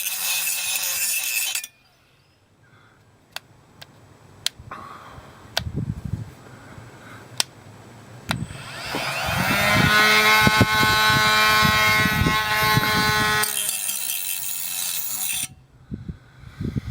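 Parkside PWSA12 B1 12-volt cordless angle grinder cutting, stopping under two seconds in, followed by a few sharp clicks and knocks. About halfway through the grinder spins up again with a rising whine, runs steadily with grinding noise, and cuts off near the end.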